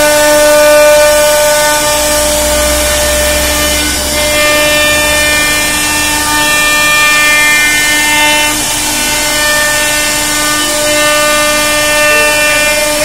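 CNC router spindle running steadily as its bit routes a groove in a solid wood panel: a steady whine of several pitched tones over the hiss of the cut.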